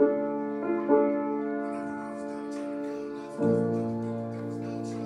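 Piano playing sustained chords: one struck at the start, another about a second in, and a fuller, lower chord about three and a half seconds in, each left to ring.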